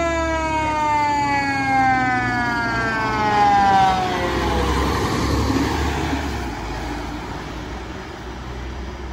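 Fire engine's mechanical Q siren winding down: one loud tone, cut in sharply, slides steadily lower in pitch for about four and a half seconds as the truck passes close. After that the truck's engine and tyre rumble fades as it pulls away.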